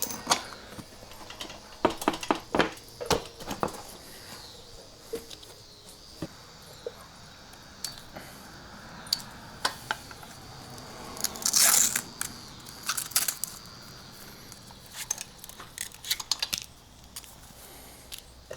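Scattered clicks, knocks and rattles of hands and tools working on an electric MX550 mini bike as it is taken apart, with a short tearing sound about twelve seconds in.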